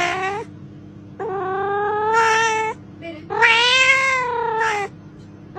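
A cat meowing in a run of long, drawn-out meows with short gaps between them. The two middle meows are the longest and rise and fall in pitch.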